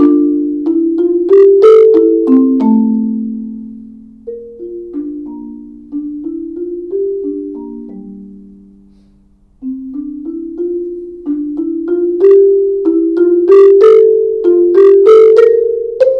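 Concert marimba played with yarn mallets, each struck wooden bar ringing out. A phrase steps down in pitch and grows softer to a brief pause about ten seconds in. It then resumes louder with quicker notes.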